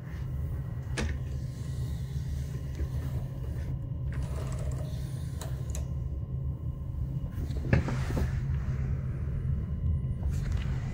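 Steady low hum inside a Rhaetian Railway passenger car, with a few sharp clicks and knocks as the coach's fittings are handled. The loudest clicks come about eight seconds in.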